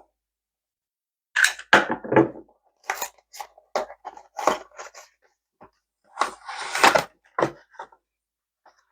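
Cardboard packaging being opened and handled: a run of irregular rustles, scrapes and clicks, with a longer rustling, tearing burst about six seconds in.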